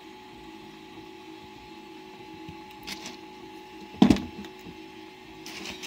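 Small handling sounds over a steady faint hum: a light click, then a single dull knock about four seconds in, and a brief rustle near the end.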